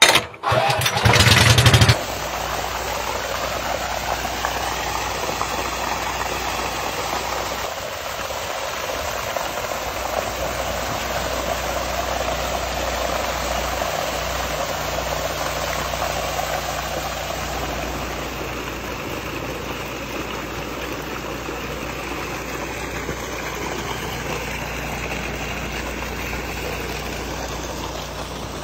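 Portable gasoline-engine water pump running steadily, with water rushing from a large hose into a swimming pool. The first two seconds are louder and harsher, then the sound settles into a steady drone.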